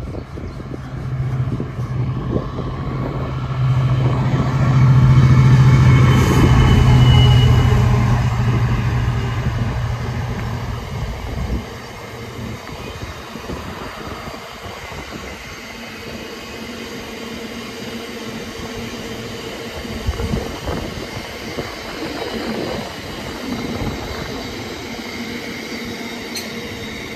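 Freight train passing at speed. The locomotive's engine hum swells to its loudest about five seconds in and drops away suddenly near the halfway mark. A long rake of box wagons then rolls past with a steady rumble and clatter.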